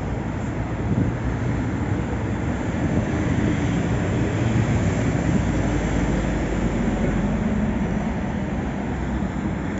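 Maserati MC20's 3.0-litre twin-turbocharged Nettuno V6 idling steadily.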